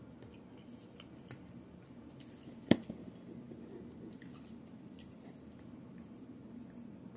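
A person chewing close to the microphone, with small wet mouth sounds and scattered faint clicks. One sharp click about two and a half seconds in is the loudest sound.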